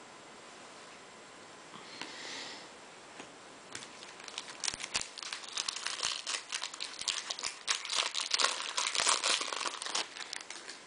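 Foil wrapper of a baseball card pack crinkling and tearing as it is pulled open by hand. A dense, sharp crackle starts about four seconds in and keeps going.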